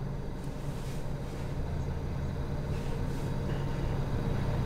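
Low, steady motor-vehicle rumble with a hum, growing slowly louder.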